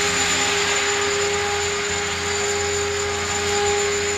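Align T-Rex 500 electric radio-controlled helicopter hovering low: a steady whine over the even rush of its spinning rotor blades.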